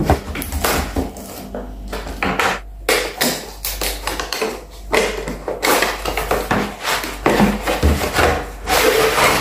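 Cardboard product box being opened by hand: irregular scraping and rubbing of cardboard as the end flap is picked open and the inner tray is slid out.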